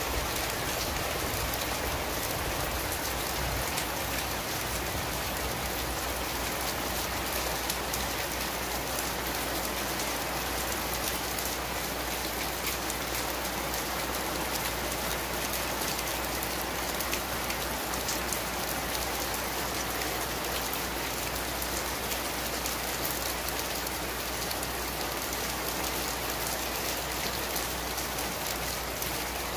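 Heavy rain pouring steadily onto leaves and the building, an even, unbroken hiss of drops.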